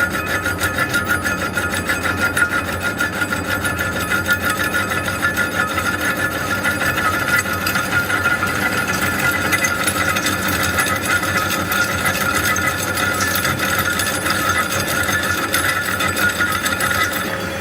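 Old metal lathe running under cut, a steady rasping scrape with fast, even ticking over a low hum.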